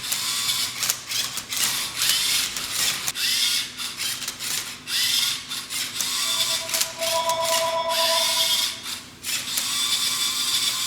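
Lego Mindstorms robot turning a Rubik's cube: its motors whir in quick repeated strokes as the cube's layers clack round, move after move. About six seconds in, a steady high tone joins for roughly two and a half seconds.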